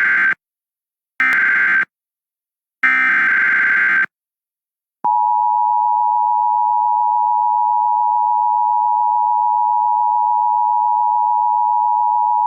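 Emergency Alert System SAME header: three short bursts of digital data tones, then, about five seconds in, the steady two-tone EAS attention signal, which holds to the end. Together they mark the start of a new alert message.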